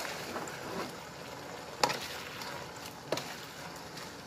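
A spatula stirring fried chicken pieces through sauce in a nonstick wok over a steady low sizzle, with two sharp knocks of the spatula against the pan about two and three seconds in.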